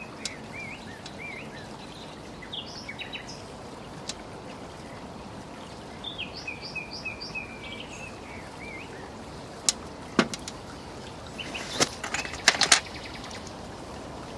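Small songbirds chirping in short repeated phrases over a steady outdoor background hiss, with a few sharp clicks near the end as metal fishing tackle is handled on the table.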